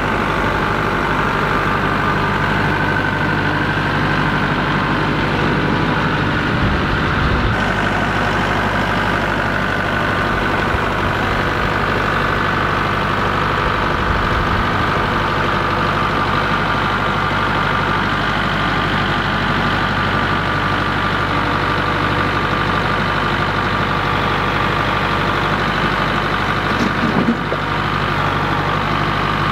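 Kubota MX5400 tractor's four-cylinder diesel engine running steadily under light load while it carries a stack of wooden pallets on loader pallet forks. A brief knock near the end comes as the load is set down.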